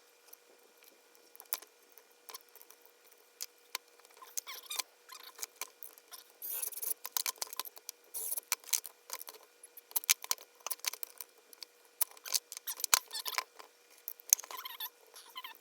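Hand work on a small chainsaw's parts: irregular sharp clicks, light knocks and scrapes of plastic and metal, busiest in the middle, with a few short squeaks near the end.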